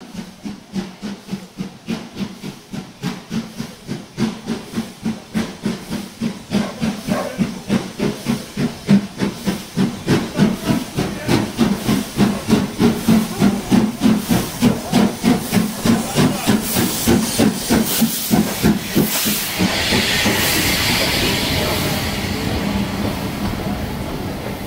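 Steam locomotive 5428 chuffing as it approaches, its exhaust beats even at about two to three a second and growing louder. About 19 seconds in the beats give way to a loud hiss of steam as the engine passes, followed by the steadier running noise of the carriages rolling by.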